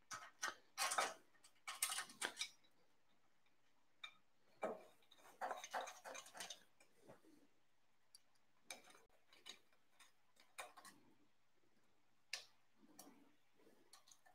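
Faint, irregular small metallic clicks and taps from handling the screws and aluminium extrusions of an Ender 6 3D printer frame while fitting a corner joint, coming in clusters in the first half and sparser later.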